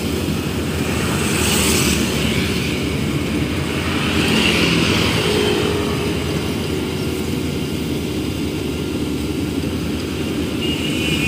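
Engine of a rice harvesting machine running steadily under load, with two brief swells in the first half.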